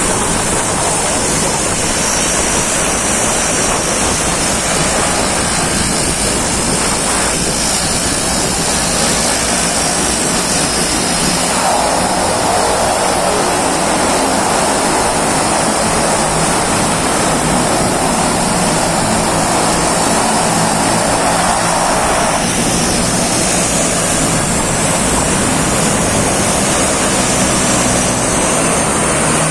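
Twin Otter seaplane turboprop engines running: a steady, loud rush with a high turbine whine. It grows louder in the middle for about ten seconds, and a second whine glides upward near the end.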